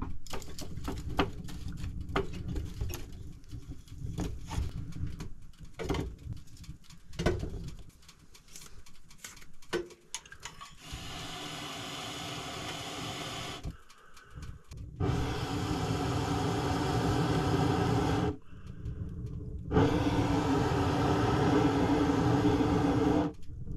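Small pieces of firewood knocking and clattering as they are handled and loaded, for about the first ten seconds. Then come three stretches of a steady rushing noise, each a few seconds long, starting and stopping abruptly.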